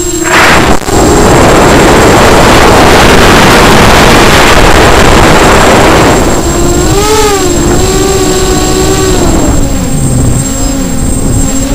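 Brushless motors and unbalanced 5045 bullnose props of a small DIY racing quadcopter whining, heard from the camera mounted on the drone, with a heavy wind rush over the microphone for the first several seconds. The motor whine wobbles up and down with throttle changes around the middle and settles at a lower pitch near the end, over a thin steady high-pitched tone.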